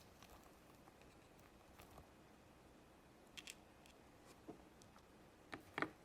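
Near silence with a few faint clicks and taps of small toys and packaging being handled, a little louder near the end.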